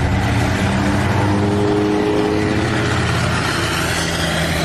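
Bus engine running under load with a basuri-type telolet horn playing a short melody of held notes that step between pitches over the first few seconds.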